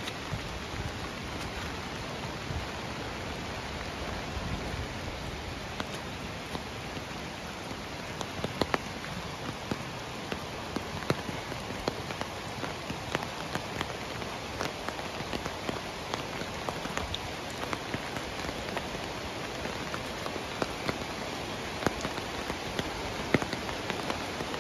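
Steady rain falling, with sharp single drops ticking close by, more often from about eight seconds in.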